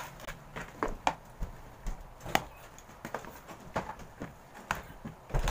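Small plastic slime tubs knocking and clattering as they are lifted out of a large plastic tub and set down on a table: a run of irregular light knocks.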